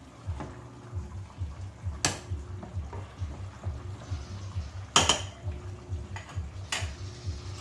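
Spoon stirring cooked vegetables in a pot, with three sharp clinks of the utensil against the pot and dishes, the loudest about five seconds in.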